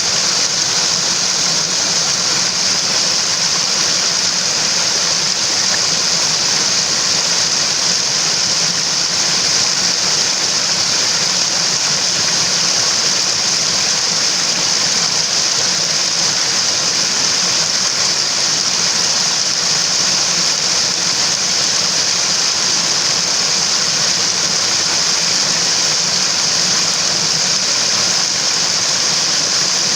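Mountain stream water rushing steadily over rocks: an even, high-pitched rush with no breaks or changes.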